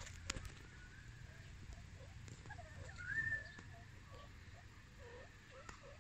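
Meerkats giving faint, soft chirping contact calls in quick repeated peeps, with one higher rising call about three seconds in.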